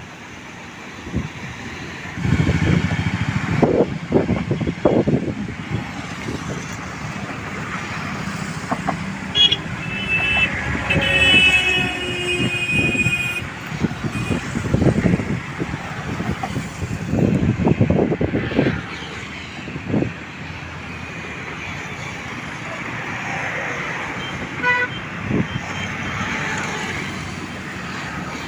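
Road traffic passing, with a vehicle horn sounding for about three seconds a third of the way in. A short run of quick beeps follows near the end.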